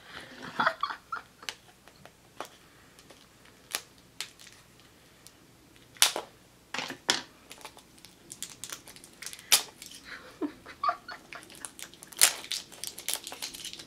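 Hard plastic surprise-egg capsule being twisted and pried at by hand, giving scattered sharp clicks and snaps as the halves refuse to come apart, with a quick run of clicks near the end.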